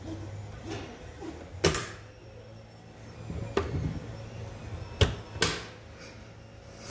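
Hard plastic clicks and knocks as a 3D-printed eye piece is handled and fitted onto a helmet: four separate clicks, the sharpest about five seconds in.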